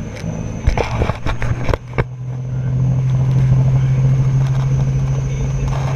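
Robinson R44 helicopter's piston engine and rotor running as a steady low drone that grows louder about two seconds in and then holds. A few sharp knocks come in the first two seconds.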